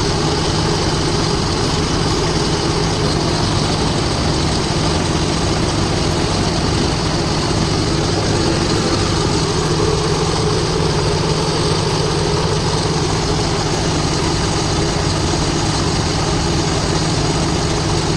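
Truck engine idling steadily: a constant low drone.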